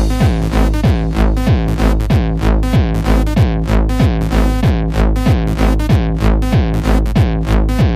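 Electronic dance music with a techno feel: a steady four-on-the-floor kick drum at about two beats a second over a sustained synth bass, with crisp hi-hat hits between the kicks.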